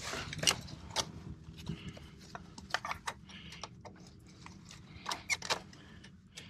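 Handling of an outdoor outlet's plastic weatherproof cover and an extension cord plug being pushed into the receptacle: a string of irregular light clicks and taps.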